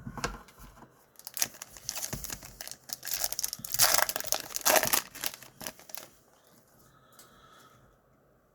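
A Panini Donruss Optic trading-card pack wrapper crinkling and tearing open for about six seconds.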